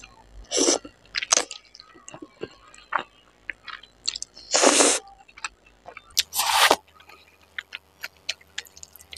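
Close-up mouth sounds of someone eating noodles: three loud slurps as strands of spicy fried noodles are sucked in from chopsticks, the longest near the middle, with wet chewing clicks in between.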